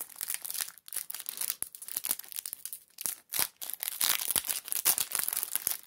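Wrapper of a trading-card pack crinkling and tearing as it is opened by hand, a dense run of crackles.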